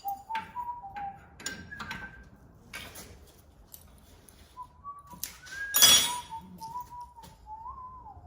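A man whistling a wavering tune while handling parts, with scattered clicks and knocks and one loud metallic clank about six seconds in.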